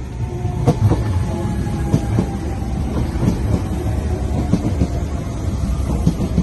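Docklands Light Railway train passing close by: a deep rumble of wheels on rail, with a clack from the rail joints about once a second and an electric motor whine that falls slowly in pitch.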